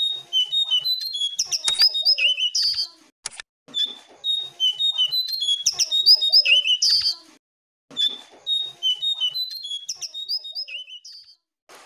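Jongkangan babbler singing: three rapid phrases of short, clear whistled notes, each about three seconds long, with brief pauses between them. The song is played as a lure recording to set caged jongkangan singing.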